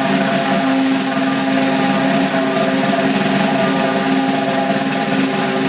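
Sustained drum roll, rapid strokes blending into one continuous rattle at an even level, with no build or break.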